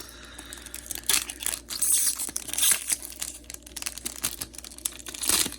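Trading card packaging crinkling and tearing by hand: irregular crackles and rips as a Yu-Gi-Oh display box is opened, busiest about two seconds in and again near the end.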